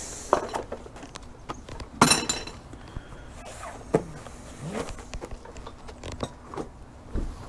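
Clicks, knocks and rustles of a new brake rotor and its cardboard box being handled, with a louder clatter about two seconds in.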